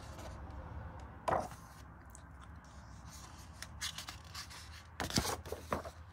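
Paper pages of a colouring book being handled and turned: a few short rustles and scrapes, the loudest about a second in and again about five seconds in, over a low steady hum.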